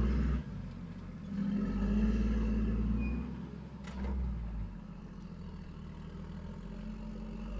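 Toyota Land Cruiser HDJ80's turbo-diesel straight-six labouring up a steep muddy climb. It revs up in surges, strongest in the first half, then settles to a lower, steadier running. A single sharp click comes about four seconds in.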